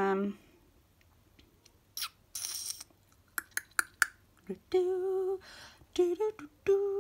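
Paper rustling and light clicks as sticker sheets are handled, then a woman humming a tune in held, wavering notes from about five seconds in.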